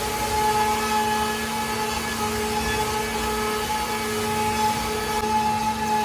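CNC router spindle running steadily with a constant whine over a hiss of the bit cutting wood.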